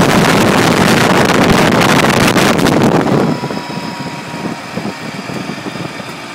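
Wind rushing over the microphone on a moving motorcycle, loud for about the first three seconds, then dropping off sharply to leave the motorcycle's engine running underneath.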